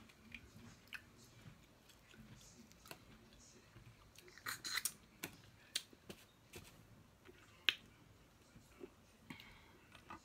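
Snow crab leg shells being cracked and pried apart, with scattered sharp snaps and crackles, and chewing in between. The loudest moments are a cluster of cracks about four and a half seconds in and a single sharp crack near eight seconds.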